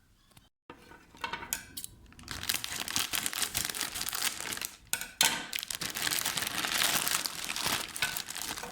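Packaging crinkling and crumpling as it is handled and opened, with a short break about five seconds in.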